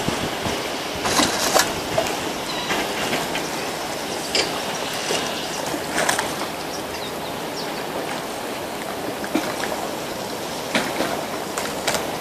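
Steady hissing outdoor background noise of a harbourside, broken by scattered short sharp knocks and clicks.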